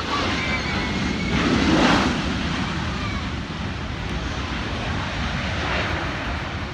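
Jet engines of a Boeing 737-700 on its landing rollout, a steady wide rushing noise that swells to its loudest about two seconds in and then holds a little lower.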